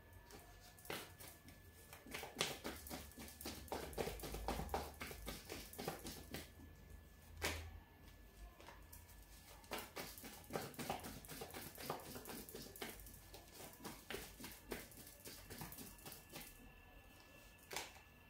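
A deck of tarot cards being shuffled and handled by hand, giving faint, irregular card snaps and taps.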